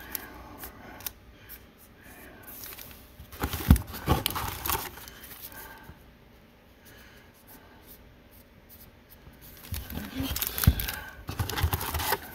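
Foil booster packs and their cardboard display box being handled: rustling and scraping, with sharper knocks about four seconds in and again near the end, and a quieter spell in the middle.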